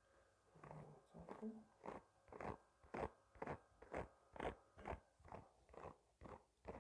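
Bristle hairbrush swept across the microphone in steady strokes, about two a second, starting a couple of seconds in.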